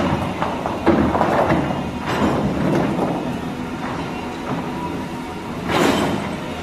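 Cat hydraulic excavator's diesel engine running steadily, with irregular clanks and scrapes of stone against the bucket as it works; the loudest scrape comes near the end.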